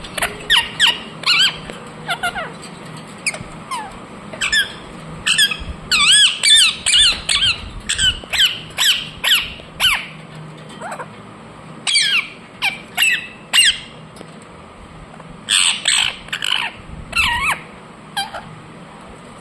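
Ringneck parrot chirping and squawking: rapid runs of short, sharp calls that sweep up and down in pitch, coming in bursts with brief pauses between them.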